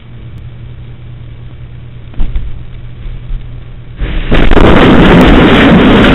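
A car smashing through a shop's storefront: after a steady low hum and a single thump about two seconds in, a sudden, very loud, sustained crash of breaking glass and debris starts about four seconds in, with the car's engine audible under it near the end.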